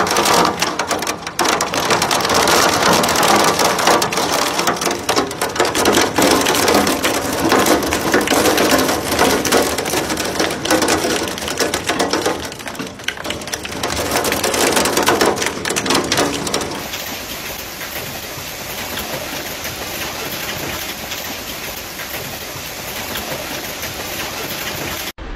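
Torrential wind-driven rain lashing against glass in a severe thunderstorm, a loud dense patter that swells and eases. About 17 seconds in it gives way to a softer, steadier hiss of heavy rain and hail falling on a yard.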